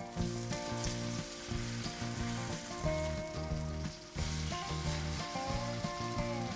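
A minari and bean sprout pancake (jeon) frying and sizzling in oil in a pan, a steady crackling hiss, with background music underneath.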